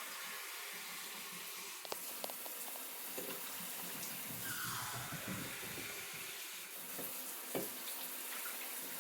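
Water running steadily from a kitchen tap into a container, measuring out two cups of water for an Instant Pot, with a few faint clicks.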